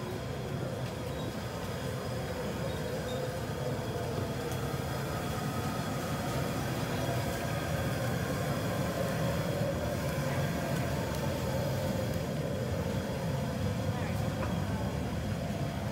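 Outdoor street ambience: a steady low rumble with a faint hum through it, and indistinct voices of people in the background.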